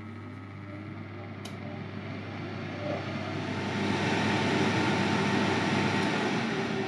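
Philips air fryer running just after being switched on: a low hum under a fan whir that builds up over the first few seconds and then holds steady, with a single click about a second and a half in.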